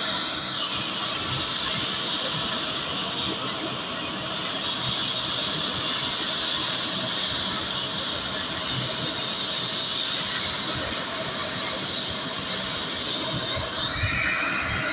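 Helicopter on the ground with its rotors turning: a steady turbine whine over the rush of the rotor. The whine rises in pitch about a second before the end.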